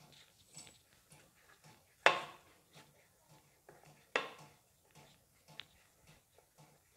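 Hands rolling soft dough into thin ropes on a wooden board: faint soft rubbing, broken by two sharp ringing clinks about two and four seconds in.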